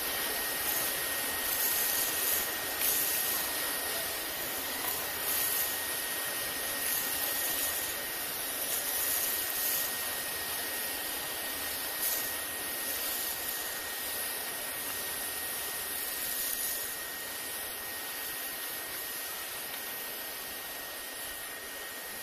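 Dyson V11 Absolute Pro cordless stick vacuum switching on and running steadily with a constant high whine, its crevice tool sucking up loose tea leaves, lentils, rice and wheat from the grooves of a test board. A few small ticks come through as debris is pulled in.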